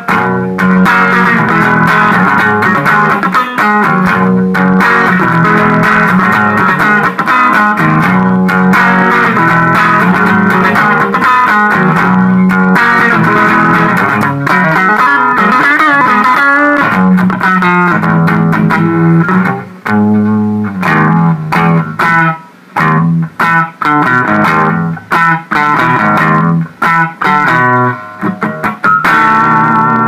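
Electric guitar played through a ProCo RAT distortion pedal, being tested after a footswitch repair: distorted chords ring out continuously, then turn choppier, with short stops between phrases in the last third.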